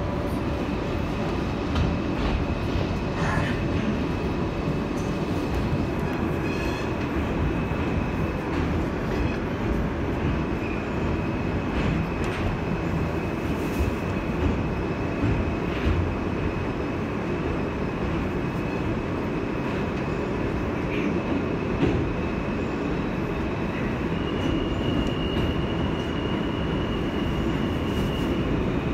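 An R160A New York subway car running through a tunnel, heard from inside the car: a steady rumble of wheels on rail with a few clicks. Over it runs a thin high whine that steps up in pitch near the end.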